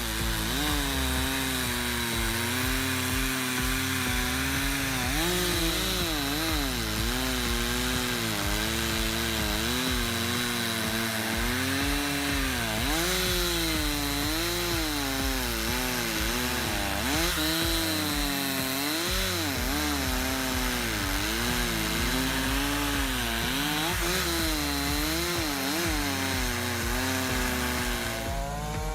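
Chainsaw engine running at high revs while cutting wood, its pitch dipping and recovering again and again as the chain takes load in the cut.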